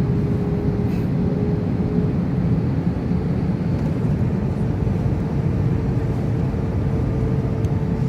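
Steady drone of a passenger jet's cabin on final approach: engine and airflow noise, mostly low-pitched, with a faint steady hum over it.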